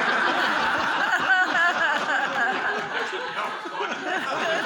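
A small group of people laughing together, several voices at once, with no pause.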